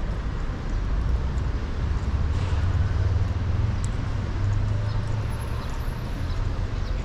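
City street ambience: a steady low rumble, as of road traffic, with a few faint clicks over it.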